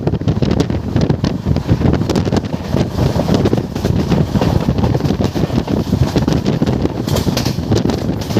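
Steady rumble of a train running at speed, with wind buffeting the microphone.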